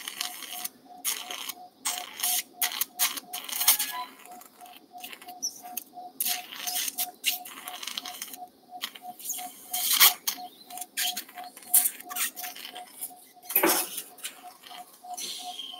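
Steel surgical instruments clicking and scraping in irregular short strokes, over a steady run of short, even beeps about two and a half a second, typical of an anaesthesia pulse monitor following the dog's heartbeat.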